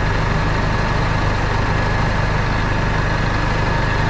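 Flatbed tow truck's engine idling steadily, an even low hum with no change in pitch.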